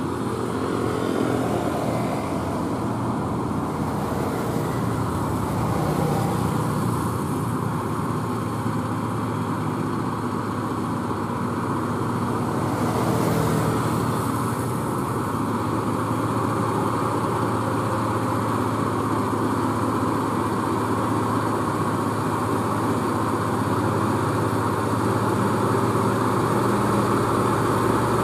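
Diesel engine of a loaded UD Quester heavy truck working hard in a low gear as it crawls up a steep incline carrying steel reinforcing bars, a steady low drone that swells briefly about halfway through.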